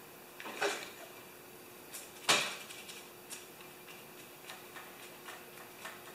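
Small handling noises from working on a snowblower: a short scrape about half a second in, one sharp click a little over two seconds in, then scattered light ticks.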